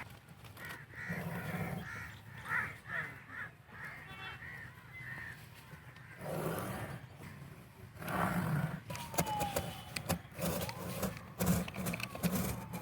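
Birds giving harsh, repeated caw-like calls over the first few seconds. From about eight seconds in come scattered sharp knocks and a falling gliding tone.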